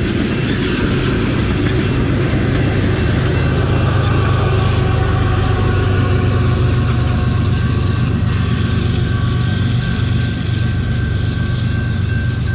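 Long freight train rolling past a grade crossing: a steady low rumble of the cars going by, with a faint steady whine higher up.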